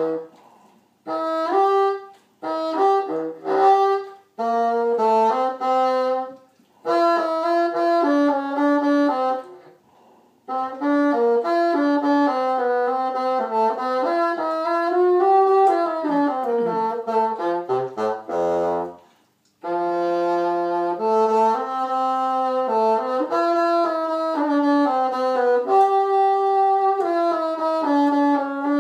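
Bassoon played solo without accompaniment: a melodic line in phrases with short breaths between them, one long phrase ending in a run down to a very low note a little after halfway.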